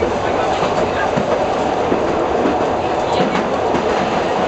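Metre-gauge diesel railcar running through a tunnel, heard from inside the cab: a loud, steady rumble of wheels on rails and engine, with a few faint clicks as the wheels cross rail joints.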